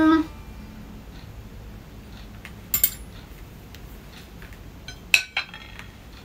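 Metal spoon and fork clinking against a plate: a pair of short clinks about three seconds in and two more about five seconds in.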